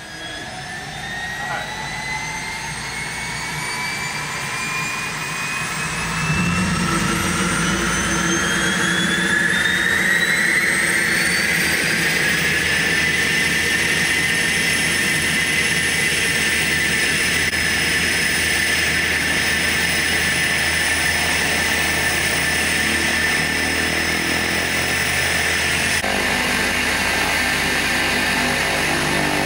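Cessna Grand Caravan's single turboprop engine starting up: a whine rises steadily in pitch for about twelve seconds and grows louder, with a jump in loudness about six seconds in. It then settles into a steady whine at idle.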